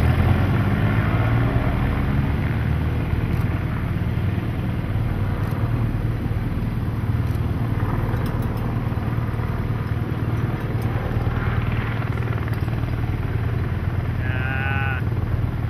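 Steady low engine drone, with evenly spaced pitched lines, from the motor vehicles of a bike-race convoy.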